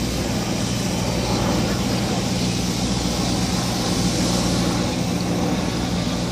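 Fire engine's engine running steadily, a constant low drone under an even hiss.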